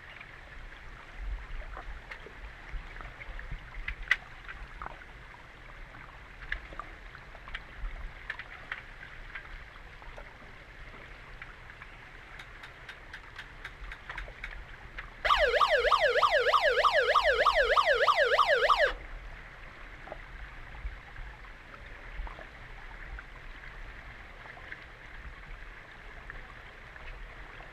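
Underwater referee siren sounding a rapid up-and-down warble for about three and a half seconds, a little past the middle, the signal that stops play in underwater hockey. Around it, faint clicks and knocks of sticks and puck carry through the water.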